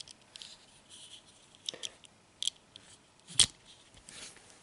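Faint clicks and rubs of fingers handling a small die-cast metal toy pickup truck, with one sharper tap about three and a half seconds in as it is set down on the table.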